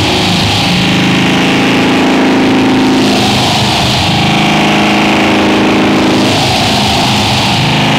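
Live harsh noise music: a loud, unbroken wall of distorted noise over steady low droning tones. A band of high hiss swells and fades about every three and a half seconds, and the drone shifts pitch with each swell.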